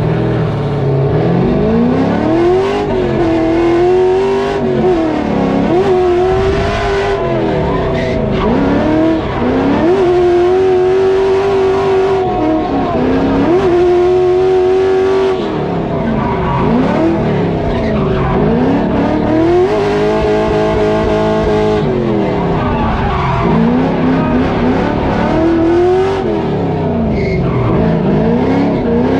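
LS1 V8 in a Nissan 240SX S13 drift car, heard from inside the caged cabin, revving hard through a run of drifts: the revs climb, hold high for a second or two and drop again, over and over, with tyre squeal.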